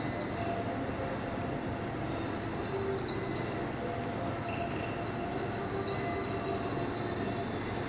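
Cash register beeping as its keys are pressed: short, high beeps about three seconds apart, one lower beep between them, over a steady background rumble.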